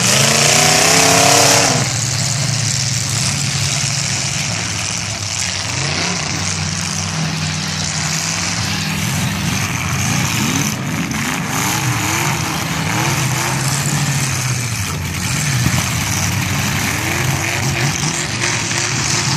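Several demolition-derby cars' engines revving hard, their pitch rising and falling as the cars push against each other, loudest in the first two seconds. A few sharp knocks come now and then.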